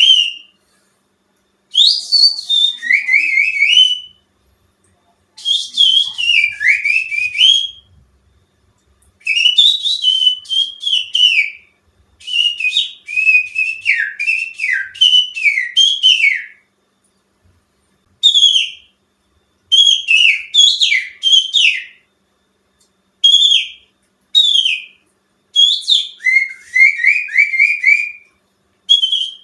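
Finger whistling that imitates a greater green leafbird's (cucak ijo) song: rapid warbling phrases of short sliding whistle notes, each phrase one to four seconds long with short pauses between. It is a lure call meant to provoke a caged cucak ijo into singing.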